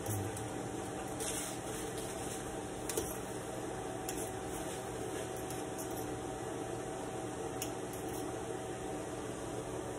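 Steady kitchen hum and hiss, with a few faint clicks, as a hand works in a steel pot on a lit gas stove.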